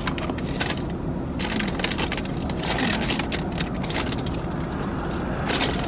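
Paper takeout packaging rustling and crinkling in a crackly run of small clicks as the food is handled, over the low steady hum of the car's idling engine.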